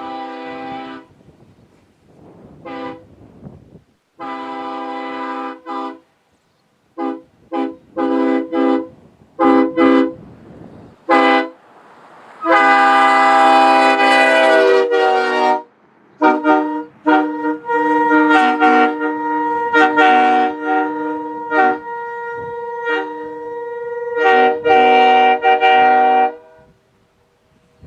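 Nathan K5HL five-chime train air horn sounding a chord in a series of short toots and longer blasts. There is a run of quick toots in the middle, a blast of about three seconds, then more toots and held blasts before it stops near the end.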